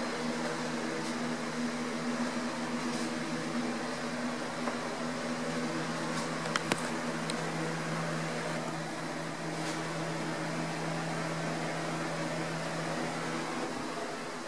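Electric box fan running steadily with an even hum and rush of air. Two brief clicks sound about six and a half seconds in.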